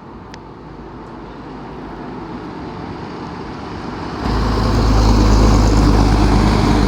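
A vintage bus engine growing steadily louder as it draws near, then jumping to a loud, low rumble a little past halfway.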